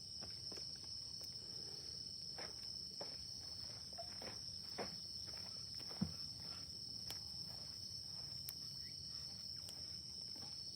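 Crickets chirping steadily, with scattered small pops and crackles from a wood campfire; the sharpest pop comes about six seconds in.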